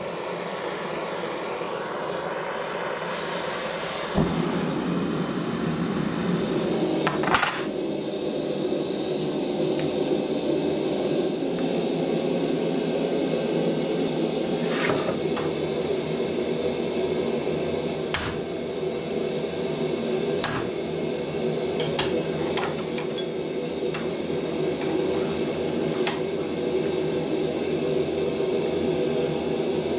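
Steady roar of a gas forge burner, with a few scattered sharp metallic clinks and knocks from mild steel flat bar being handled against a bench vise.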